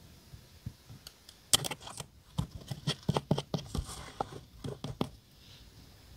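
Paper stickers and labels being handled on a desk: a quick run of crisp taps, scrapes and crinkles that starts about a second and a half in with a sharp snap and stops about five seconds in.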